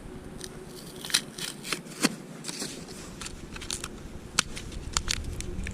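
A scatter of irregular small clicks and crackles, a dozen or more, with no steady sound under them.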